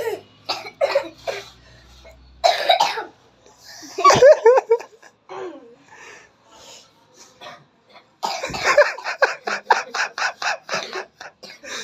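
Children coughing: a few short coughs in the first seconds, then a long run of quick, repeated coughs starting about eight seconds in.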